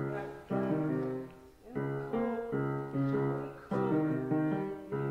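Grand piano played in slow chords, each struck and left to ring and fade before the next.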